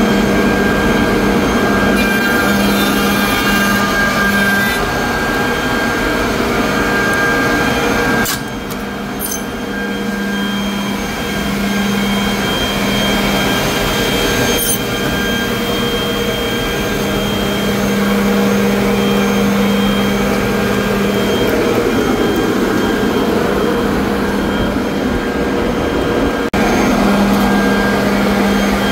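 Holz-Her Streamer 1054 edgebander running: its unit motors give a loud, steady whir with a constant hum, broken by a few short clicks.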